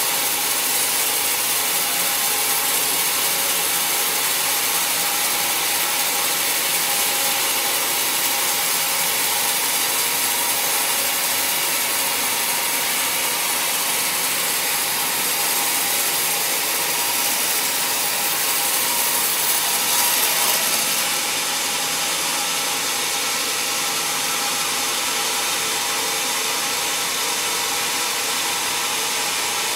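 Sawmill band saw blade ripping lengthwise through a decayed teak log: a steady, hissy cutting noise. About two-thirds of the way through, the highest part of the hiss drops away and the sound gets slightly quieter.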